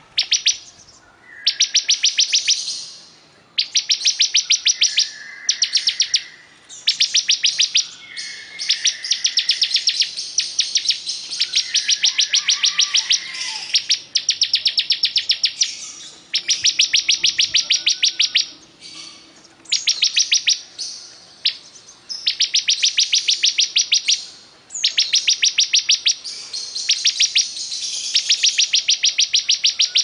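Caged ciblek kristal (bar-winged prinia) singing vigorously. It gives repeated rapid, high chattering trills, each about a second or two long, separated by short pauses.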